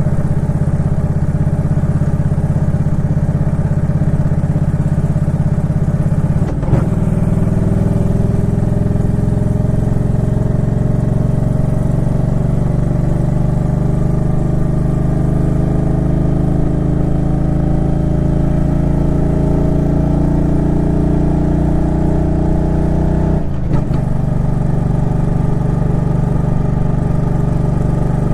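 Suzuki Intruder Classic 400's V-twin engine running under way, its pitch slowly rising for most of the stretch. It has two brief breaks, one about six seconds in and one near the end.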